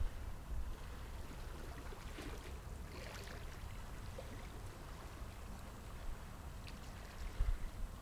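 Calm seawater lapping gently at rocks along the shoreline, with a few soft splashes about two to three seconds in and again near the end. A steady low rumble of wind on the microphone runs underneath.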